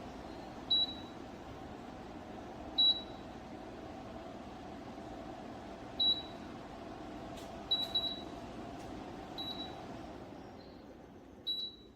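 Dreo Cruiser Pro tower fan running with a steady airy hum, beeping short high beeps about seven times, two of them in quick succession, as its settings are changed. The airflow sound drops off somewhat near the end.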